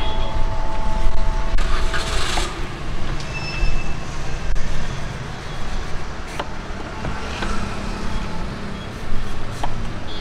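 Roadside traffic noise: a steady rumble and hiss of passing vehicles, with a held two-note tone for the first couple of seconds and a few sharp clicks scattered through.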